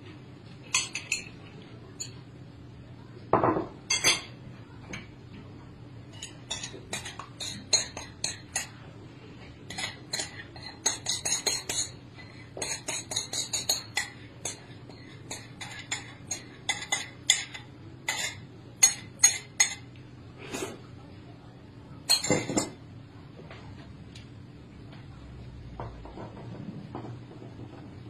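Ceramic bowls and plates clinking, with chopsticks knocking against them, in quick irregular clinks that are busiest in the middle and die away near the end. Two duller knocks, one a few seconds in and one past the middle, sound like a bowl being set down on the table.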